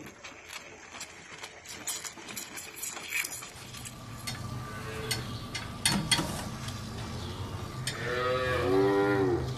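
Holstein calf mooing, one drawn-out bawl near the end that wavers in pitch, over a steady low hum.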